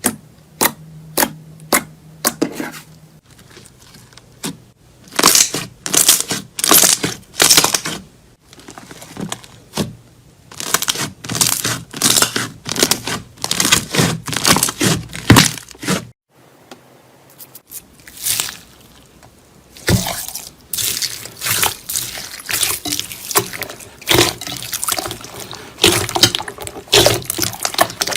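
Slime being pressed, poked and stretched by hand: a long run of sticky, wet clicks and squelches, with a short pause about sixteen seconds in.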